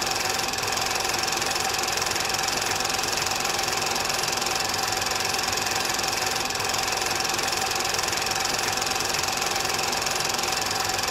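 Film projector running: a steady mechanical whirr with a rapid, even clatter.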